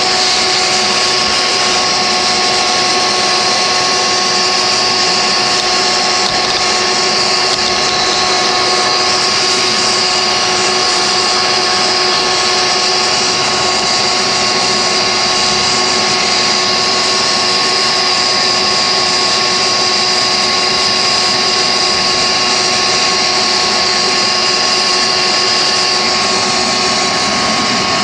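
Wet vac running steadily with a high whine, its hose nozzle drawing dirt and coil-cleaner foam off an air handler's evaporator coil.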